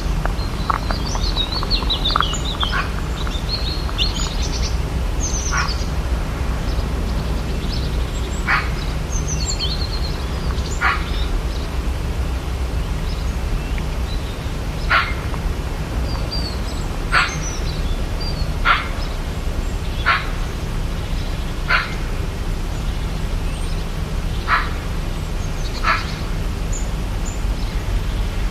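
Rainforest ambience: birds chirping in the first few seconds, then a short sharp call repeating every second or two, over a steady low rumble.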